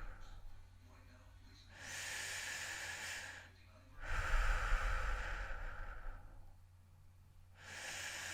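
A person breathing heavily and slowly, with about three long, noisy breaths and quiet pauses between them. Hissier breaths alternate with louder, lower ones.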